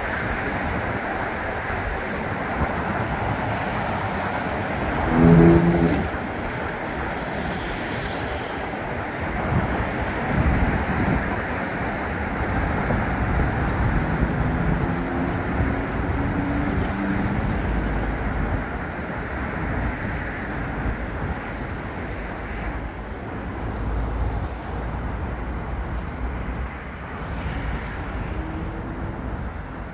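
Outdoor street ambience on a road closed to cars: a steady hum of the town as road bicycles pass by. A brief loud pitched sound stands out about five seconds in.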